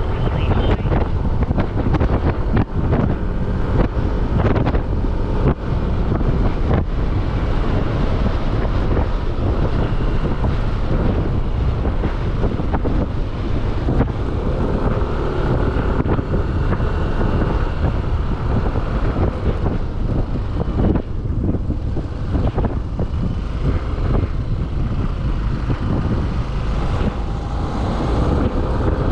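Wind buffeting the microphone on a moving motorcycle, with the motorcycle running underneath.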